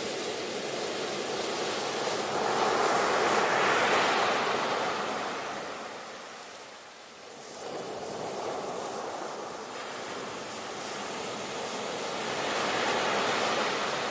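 Ocean surf: waves rolling in and washing over the shore in slow swells, one building about three to four seconds in, easing off around seven seconds, and another rising near the end.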